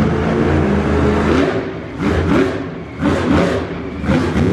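Monster truck engine running steadily at low revs, then from about two seconds in revved hard in short bursts, about one a second, each rising in pitch.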